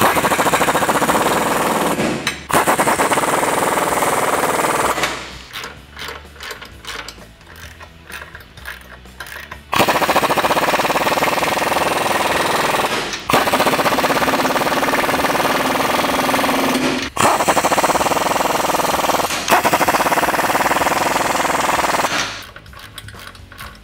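Impact wrench with a 13 mm deep socket hammering nuts down onto the rocker step bracket studs. It runs in five long bursts of a few seconds each, with a quieter stretch of scattered clicks between the second and third.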